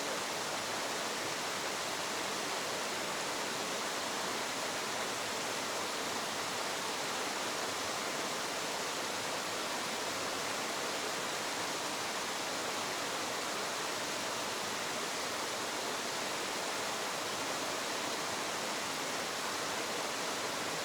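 Small waterfall: water pouring and splashing in a steady, even rush.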